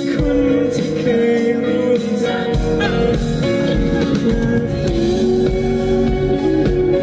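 Live pop song played through a PA: a male voice singing held, sliding notes over strummed acoustic guitar, with a low bass part entering about two and a half seconds in.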